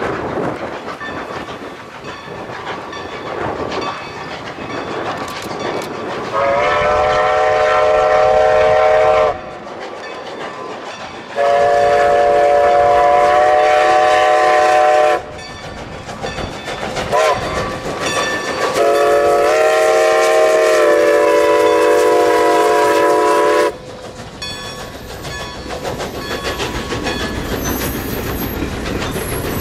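Steam locomotive's chime whistle sounding three long multi-note blasts with a brief toot before the last, the long-long-short-long grade-crossing signal, as the engine works past with its train. Near the end the passenger coaches roll by.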